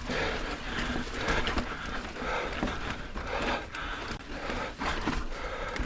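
Mountain biker breathing hard in quick, rhythmic breaths, about two a second, while pedalling up a short technical climb.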